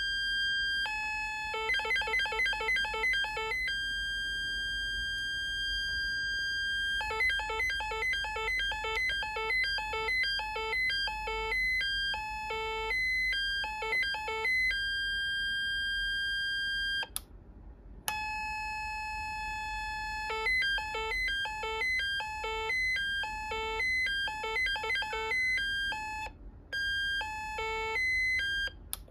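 Electronic beeping from the speaker of a Science Fair 200-in-One electronic project kit running its 'wheel of fortune' circuit. It plays fast runs of short beeps that switch between pitches, with some single tones held steady for a second or more. The sound cuts out briefly, with a click on each side, about two-thirds of the way through.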